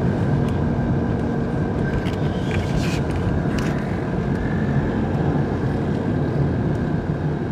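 Steady road noise inside a moving car: the engine and tyres running at an even pace.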